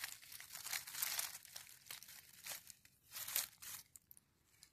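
Leafy ground cover and dry leaf litter rustling and crackling in short irregular bursts as a hand pushes through the plants, the loudest burst a little past three seconds in.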